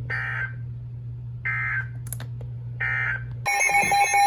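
NOAA Weather Radio end-of-message signal: three short bursts of SAME digital data tones, about a second and a half apart, marking the end of the alert. About three and a half seconds in, a loud, fast-pulsing electronic alarm tone starts.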